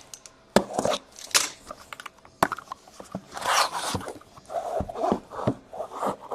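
Handling of a cardboard case of sealed trading-card boxes: scattered knocks and scrapes of cardboard, with a longer tearing rasp about three and a half seconds in.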